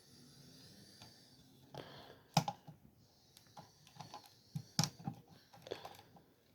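Irregular light clicks and taps, with two sharper knocks about two and a half and five seconds in.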